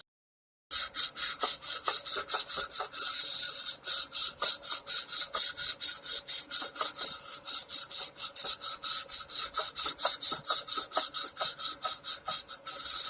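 Fret leveling tool rubbed lightly back and forth along the metal frets of an electric guitar neck in quick, even strokes, about five or six a second, a dry high scraping hiss. This is a light check pass over marker-inked frets: where the ink comes off shows the high frets.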